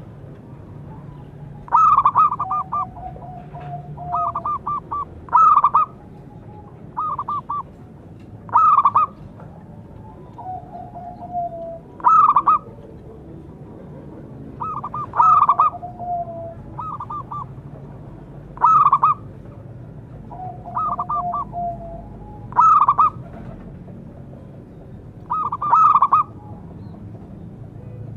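Zebra dove (perkutut) calling: short bursts of rapid staccato cooing notes repeated every few seconds, with softer, lower trills between them.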